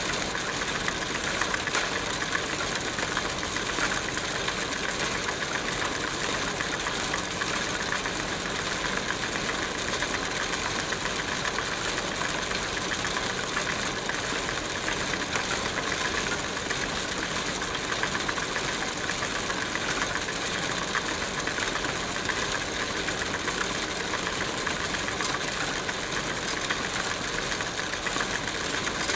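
Bicycle being ridden at a steady pace: a continuous fast ticking rattle that does not let up.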